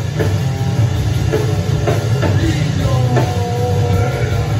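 Live rock band playing loud: drum kit, bass and electric guitar together in a steady, dense wall of sound.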